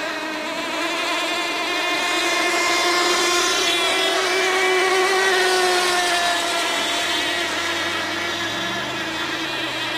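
Several radio-controlled model tunnel-hull racing boats with their small engines running at high revs in a high-pitched whine. The sound swells as the boats pass, and the pitch drops slightly about halfway through.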